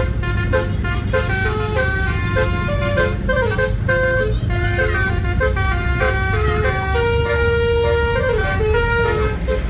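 Bus Basuri telolet horn playing a melody: a run of short multi-tone horn notes stepping up and down in pitch, with one longer held note about seven seconds in, over a steady low rumble.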